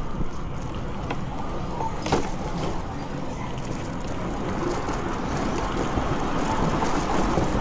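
Steady wind and road noise while riding a bicycle, with a couple of faint clicks in the first two seconds and growing slightly louder near the end.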